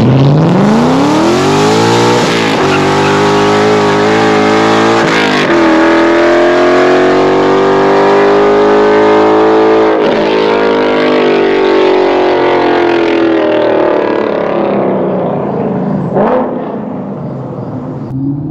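Ford Mustang GT's 5.0 Coyote V8, with long-tube headers, high-flow cats, an H-pipe and a Corsa Track axle-back, accelerating hard from a standstill. It revs out to about 7500 rpm in each gear, with three upshifts, each a brief break before the pitch climbs again. It then fades as the car pulls away down the road.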